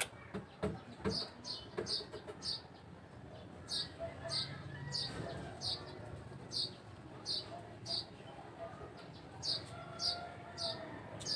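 A bird chirping over and over, short high notes that fall in pitch, about two a second, with a few sharp clicks near the start.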